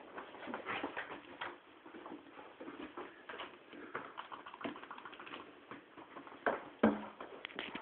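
Wet cocker spaniel rubbing and rolling on a bath mat and the floor to dry off: irregular rustling and scrabbling of fur and claws, with two sharper knocks about six and a half and seven seconds in.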